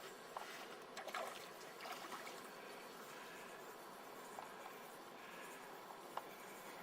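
Faint water lapping and trickling, with a few light ticks and taps scattered through it.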